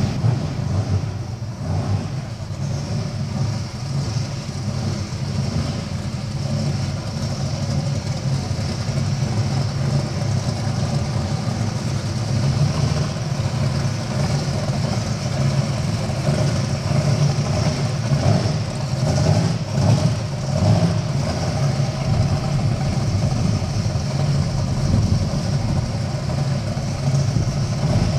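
Twin-turbo V8 drag-racing Mustang idling loudly and steadily, with a few short throttle blips about two-thirds of the way in.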